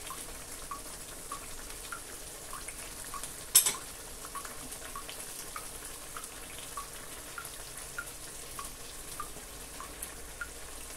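Thick egusi soup simmering in a pot, a steady hiss with small bubbling pops at an even pace, while a wooden spatula stirs it. One sharp knock about three and a half seconds in.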